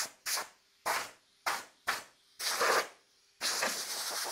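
Compressed-air blow gun on a shop air hose, fired in about six short hissing blasts and then one longer blast that starts a little over three seconds in.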